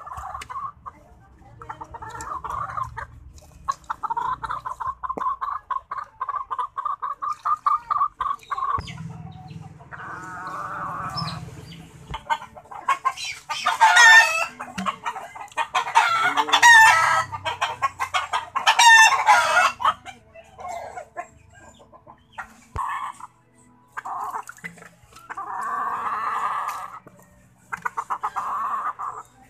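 Domestic chickens clucking and cackling in rapid runs of short calls. In the middle a rooster crows three times, loud and about a second or more each.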